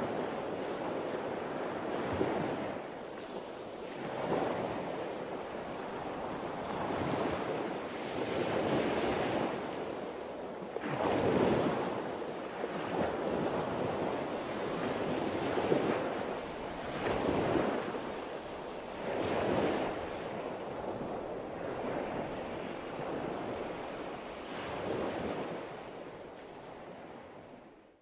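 Sea waves washing in and drawing back, one swell every two to three seconds, fading out near the end.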